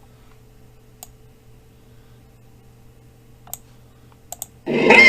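Computer mouse clicks: single clicks about a second in and three and a half seconds in, then a quick pair. Right after, a loud sound-effect clip starts playing back through the computer.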